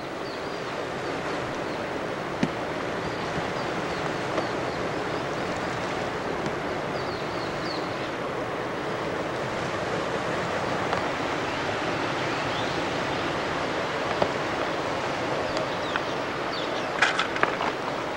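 Steady rushing noise of sea water and wind, with a few light clicks near the end.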